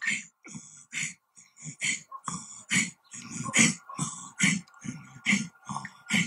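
A person's forceful rhythmic breathing with voice: sharp, hissing exhalations, about two a second, in the manner of vocal percussion.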